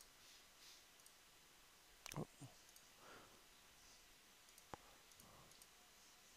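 Near silence with a few faint computer-mouse clicks: a short cluster about two seconds in and a single sharp click near five seconds.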